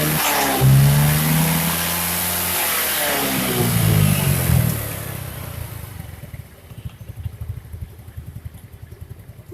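First-generation Yamaha Mio scooter's single-cylinder engine revved up and down a few times, then dropping back to an even idle about five seconds in. The rough noise from the CVT area, which came from the kick-starter shaft rubbing, is gone: the mechanic judges the fault cured.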